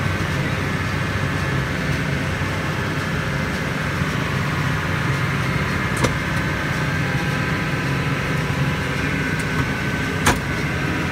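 Case IH Maxxum 125 tractor's diesel engine running steadily under load while pulling a Case IH 464 round baler, with two sharp clicks about six and ten seconds in.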